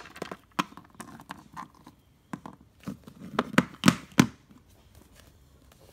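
Irregular knocks, taps and rustles of toys and hands being handled on a hard floor, with a cluster of louder knocks a little past halfway.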